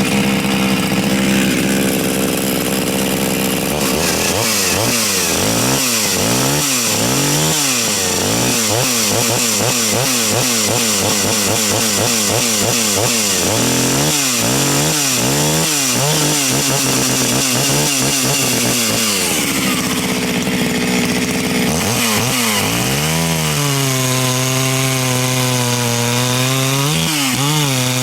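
Two-stroke chainsaw at full throttle cutting through a log. For the first few seconds it revs steadily. Then its engine speed swings quickly up and down as it is pushed into the wood, and near the end it settles into a lower, steadier pitch under load.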